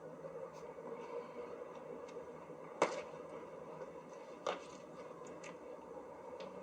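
Faint steady hum with two sharp clicks or knocks, about three and four and a half seconds in.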